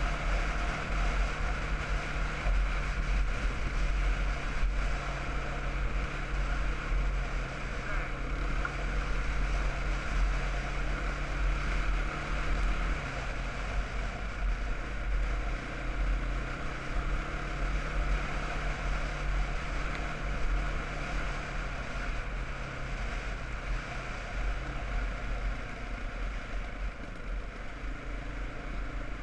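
Quad bike's single-cylinder engine running at a steady cruise, its note dropping slightly about halfway through, with heavy wind rumble on the helmet-mounted microphone.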